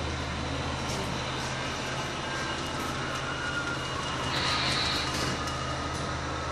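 HO-scale model trains running: a steady hum and hiss with thin high whines, and a brief brighter high tone about four and a half seconds in.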